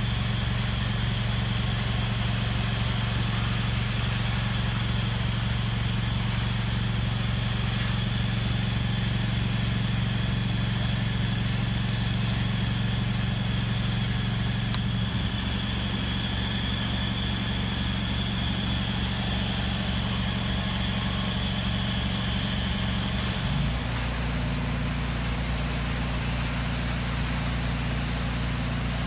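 Pressure washer's engine and pump running steadily with a low pulsing hum, under the hiss of the water jet spraying from the wand. The hum changes abruptly twice, about halfway through and near the end.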